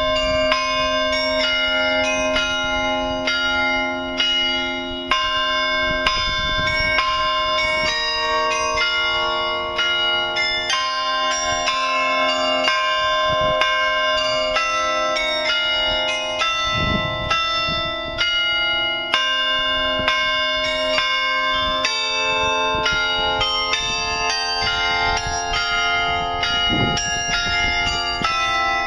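Carillon bells of the New Ulm Glockenspiel clock tower playing a tune: a quick, continuous run of struck notes, each ringing on under the next.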